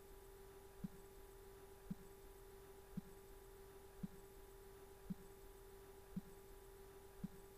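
Near silence: a faint steady hum with a soft low thump about once a second.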